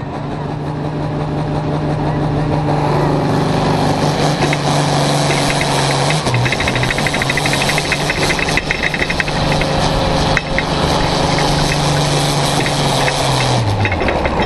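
Hot farm pulling tractor's diesel engine running flat out under load during a pull, held at a steady high pitch. Near the end the revs fall away as the throttle comes off.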